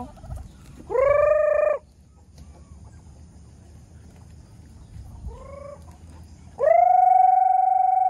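Farmyard poultry calling: a long crow about a second in, a short call a few seconds later, and a longer held crow near the end, typical of roosters.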